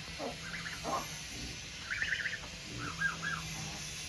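Chickens clucking: several short calls at intervals, with a quick run of clucks about two seconds in and another near three seconds.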